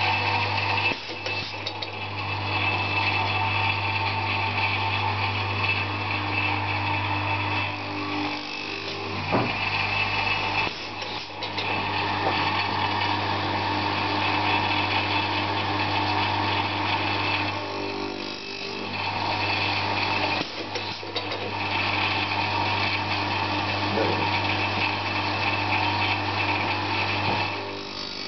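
Pneumatic circular saw blade grinder running: a steady motor hum under a grinding noise, with brief dips in level a few times.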